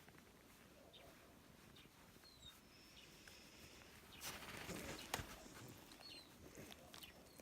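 Near silence: faint outdoor quiet with a few small high chirps and a brief rustle a little after four seconds in, ending in a single click.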